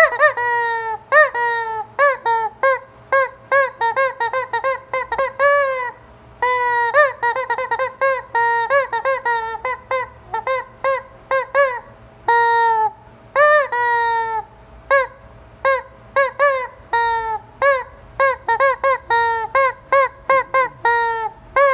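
Rubber chicken squeeze toy squawking over and over: dozens of short honking squawks, each rising then falling in pitch, in quick runs with a few longer drawn-out ones and a couple of brief pauses.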